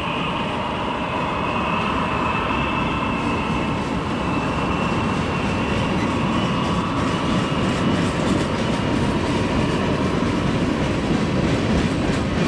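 Diesel freight train running steadily, with clicking of wheels over rail joints in the second half.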